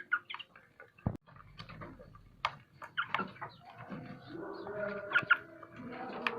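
Village chickens clucking with short, scattered calls, and a single thump about a second in. Steady music fades in over the last couple of seconds.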